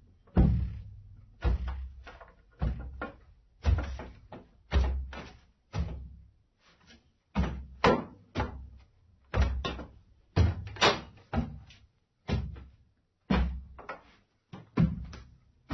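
Footsteps in socks on wooden stairs: steady stepping at about one step a second, each step a dull thud on the wood, some followed closely by a lighter second knock.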